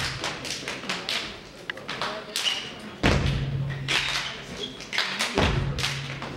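Step dancers stomping and clapping in quick succession on a stage floor, sharp claps and heavy foot stomps, with a louder stretch of impacts a little after the middle.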